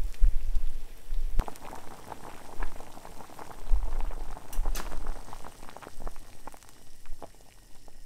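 Pot of water at a rolling boil, bubbling and popping steadily, with a sharp click about a second and a half in.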